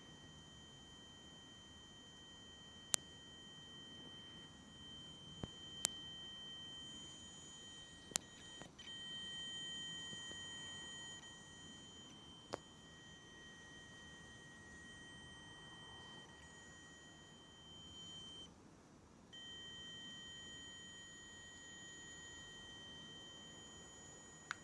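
Feiyu-Tech G3 Ultra handheld gimbal giving off a faint, steady high-pitched tone, the strange noise it makes when switched on. The tone cuts out for under a second about three quarters through and comes back, and a few sharp clicks sound in the first half.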